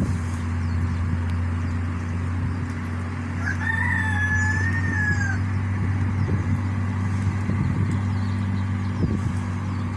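A rooster crows once, one long call lasting about two seconds near the middle, over a steady low mechanical hum.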